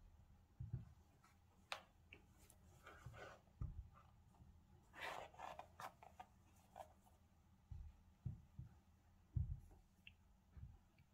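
Faint handling of a pair of Nike Air Max Plus 3 sneakers by gloved hands: scattered soft thumps as the shoes are shifted and set down, a few light clicks, and a brief rustle of laces and gloves about halfway through.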